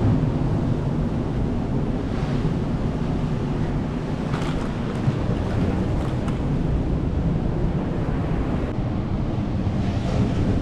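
Wind rumbling on the microphone over ocean surf washing onto the beach.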